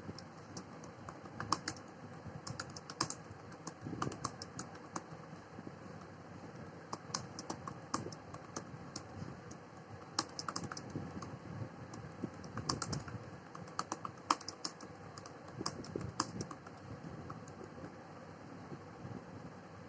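Computer keyboard keys clicking in quick, irregular runs with short pauses: fast typing at about 60 words a minute.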